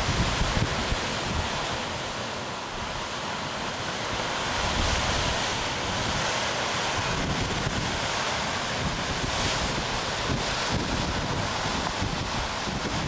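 Ocean surf breaking on a rocky boulder shore, a steady wash of waves, with wind buffeting the microphone in low gusts.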